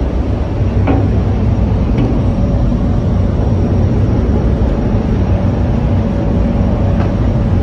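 Steady low rumble with a faint steady hum, heard on a ship's open deck.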